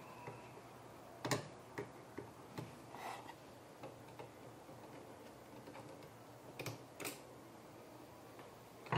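Scattered small clicks and taps of a screwdriver and plastic parts at the print-head carriage of a Brother inkjet printer being taken apart. The sharper clicks come about a second in and around seven seconds in.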